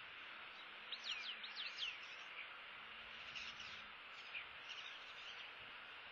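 Bird chirps: a quick run of about five high whistled notes, each sweeping downward, about a second in, then fainter scattered chirps, over a steady background hiss.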